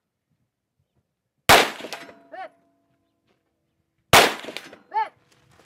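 Two shots from an FK BRNO PSD pistol in 7.5 FK, about two and a half seconds apart, each trailing off in an echo. Roughly a second after each shot comes a short metallic ring from downrange, typical of a bullet striking a steel target.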